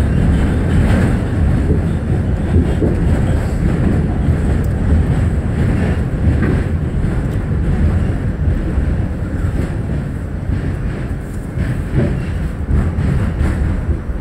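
New York City subway train heard from inside the car, running with a steady low rumble and scattered light clicks as it pulls into a station, getting a little quieter near the end.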